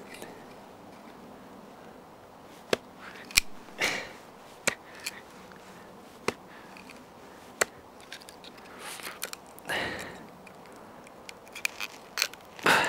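Tip of a Schnitzel DU carving knife twisted and bored into hard wood: scattered sharp clicks and short scrapes as the point bites and wood fibres crack. The wood is hard enough that the tip will not go in deeper.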